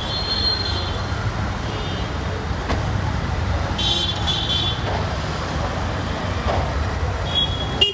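Steady low rumble of road traffic, with short high-pitched tones sounding three times: at the start, about four seconds in and near the end.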